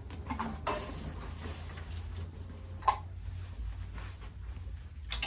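A person shifting and turning over on a chiropractic table: rustling movement, with one sharp click about three seconds in and another short click near the end, over a steady low hum.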